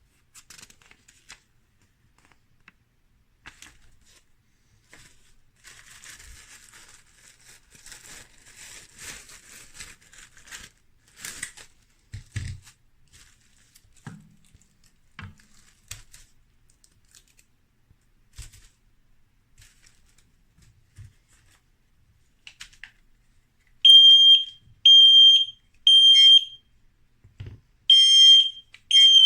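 Faint rustling, crinkling and handling clicks, then a XINDUM mini smoke detector sounding its alarm: loud, high-pitched beeps about a second apart, three in a row, a pause, then more.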